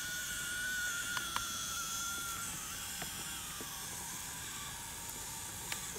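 Small electric motor and gearbox of an RC crawler truck whining steadily as it drives slowly, the pitch dropping a little a few seconds in, over a faint hiss with a few light clicks.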